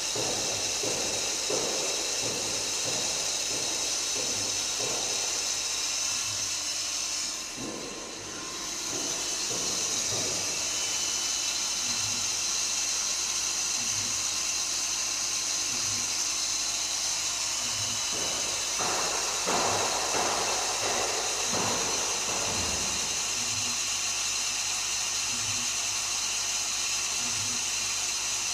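Swiss-type CNC lathe running a machining cycle: a steady hiss, as of coolant spray, with high steady machine tones, and short low knocks and rattles as the tools and axes move. The hiss dips briefly about eight seconds in.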